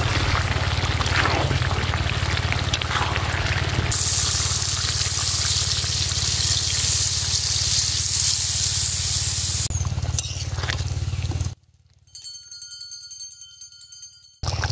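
Water poured into a wok of chicken-skin curry cooking down in hot oil, hissing and bubbling; about four seconds in a much louder, high hiss sets in, lasts about six seconds and stops abruptly. Near the end the sound cuts to a much quieter stretch with a few faint steady tones.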